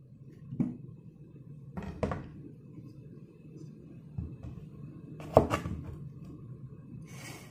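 Chinese cleaver and melon pieces knocking on a cutting board as melon is cut and trimmed: a few separate knocks, the loudest a double knock about five and a half seconds in, over a faint steady hum.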